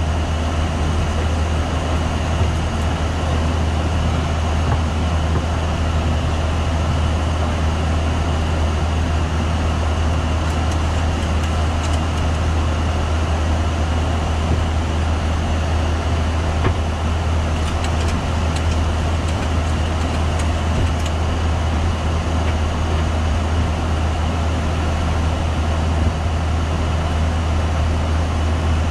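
Steady flight-deck noise of a Boeing 737-800 in flight: a low drone with rushing airflow and engine noise. A few faint clicks come in the middle.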